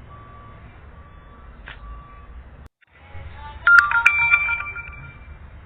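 A short electronic phone tone, a quick run of notes settling on a held higher note, sounding about three and a half seconds in over a low background hiss.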